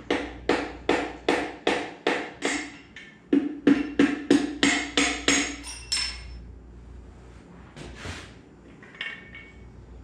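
Hammer blows on the bare Honda K24 engine block, each knock with a short metallic ring: a steady run of about two or three blows a second, a brief pause, then a quicker run, and a couple of lighter knocks near the end.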